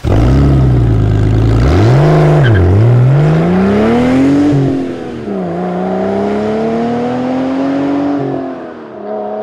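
A car engine revving hard: a steady run, a quick rev up and down about two seconds in, then two long climbs in pitch through the gears, each ending in a drop at a shift, about four and a half and eight and a half seconds in.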